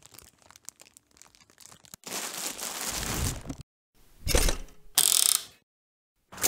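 Clear plastic cling film around a sandwich crinkling and crackling in small clicks, then a longer, louder rustle as it is handled about two seconds in. Two short, sharper crinkling bursts come near the end.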